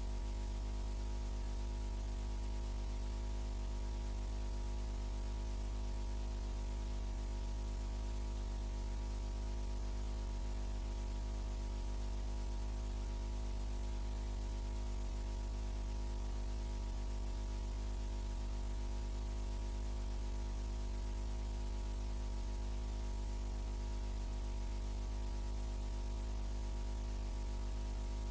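Steady mains hum with a layer of hiss, flat and unchanging, with none of the pump, hoses or water spray audible.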